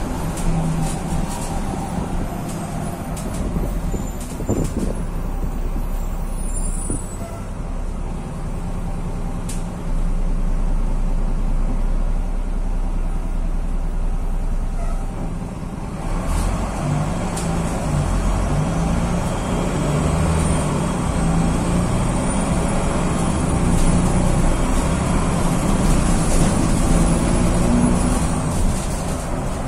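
Diesel engine of a Mascarello Granmetro city bus on a VW 26.330 OTA chassis, heard from inside the cabin as the bus drives: a steady low running that grows louder and busier about halfway through as it pulls away under load. Over the last third a thin high whine rises in pitch and then holds.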